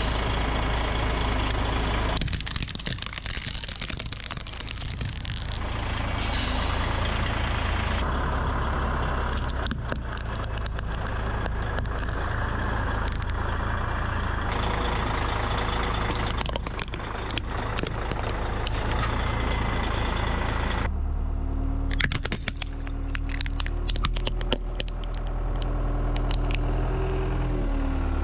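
Vehicle engines running as tyres roll over plastic toys, a toy tram and a toy car among them, with repeated bursts of plastic cracking and crunching under the wheels; the sound changes abruptly several times as one crushing clip cuts to the next.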